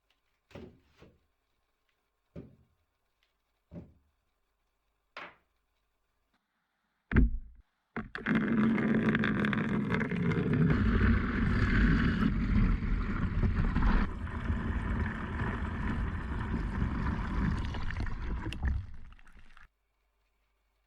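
A few light knocks and a louder knock as tools and the rusty hammer head are handled. Then a power tool runs for about twelve seconds, cleaning rust off the hammer, and stops abruptly.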